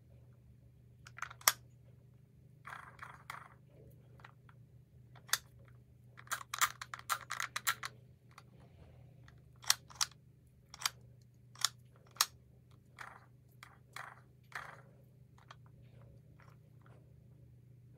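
Irregular sharp plastic clicks, knocks and short rattling scrapes from a Fisher-Price Animal Box activity cube being handled and worked, with a busy stretch of rattling about six to eight seconds in.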